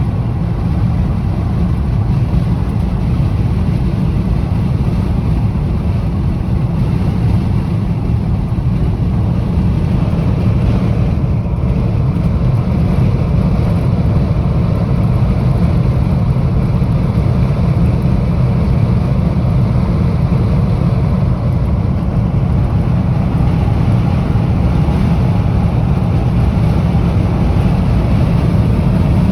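Strong wind blowing over the microphone: a loud, steady low rumble with no let-up.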